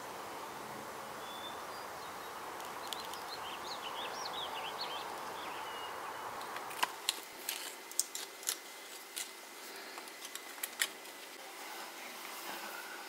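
Outdoor background noise with a few short bird chirps; then a run of sharp clicks and knocks as the dagger is handled and set in a steel bench vise.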